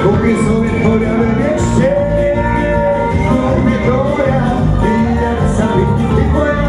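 Loud dance music playing steadily.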